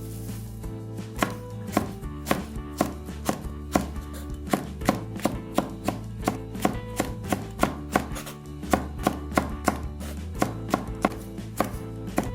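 Kitchen knife chopping food on a cutting board, sharp strokes at about two to three a second, somewhat uneven, over a steady low musical drone.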